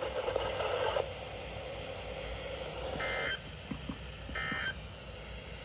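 NOAA Weather Radio receiver hiss, broken by two short data-tone bursts about three and four and a half seconds in, roughly a second and a half apart: the SAME end-of-message bursts that close the required weekly test.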